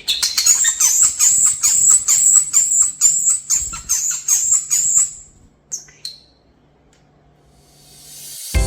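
European starling giving a loud, rapidly repeated call, about three a second for roughly five seconds, then two short single calls before falling silent. Near the end a rising hiss leads into music.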